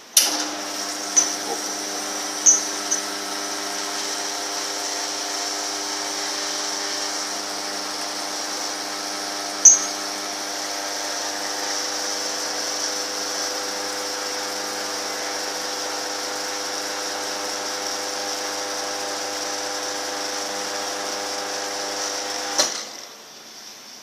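Lavazza Hybrid commercial espresso machine's pump humming steadily as it pushes water through a coffee capsule to brew two espresso shots, then cutting off suddenly after about 22 seconds when the shot is done. A few light clicks sound in the first seconds and once about halfway through.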